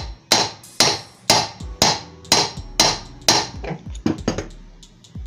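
Hammer blows on the metal cup (end cover) of a ceiling fan motor, knocking it loose from its bearing: seven hard, ringing strikes about two a second, then a few lighter knocks.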